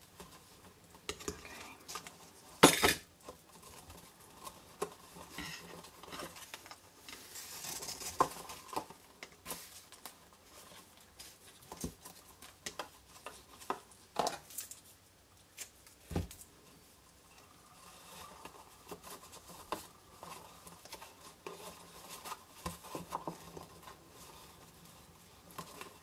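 Hands handling a paper cube box and wrapping satin ribbon around it: soft rustling of ribbon and card with scattered light taps and clicks on the craft mat, and one sharp knock a little under three seconds in.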